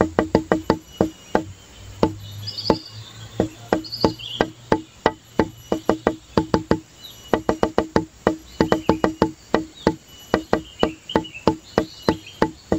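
Background music: a fast, even beat of pitched wooden clicks, about five a second, that thins out briefly twice, with light high chirping notes over it.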